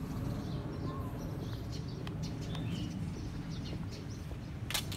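Small birds chirping on and off over a steady low background noise, with a sharp click near the end.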